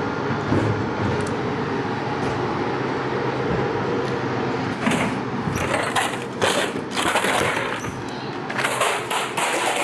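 Steady hum of vending machines, then, from about five seconds in, a run of clattering knocks and rattles as a hand works the snack vending machine's retrieval flap and takes out the purchased snack cup.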